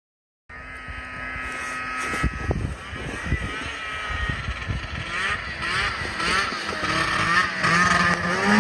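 Snowmobile engine running at a steady pitch at first. From about five seconds in its revs rise and fall in quick repeated blips, getting louder toward the end.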